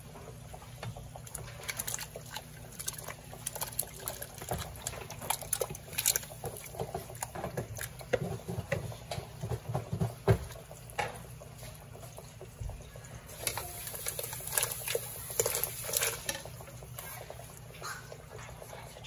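Seasoned water boiling in a large stainless steel stockpot, with irregular pops and splashes. About halfway through, food is tipped in from a bowl, making a denser patch of splashing.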